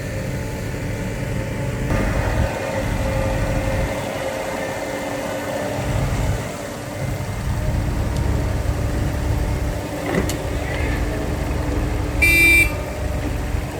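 Heavy diesel dump truck engine running with a steady low rumble while the truck works on soft sandy dirt. A short horn toot a little after twelve seconds in.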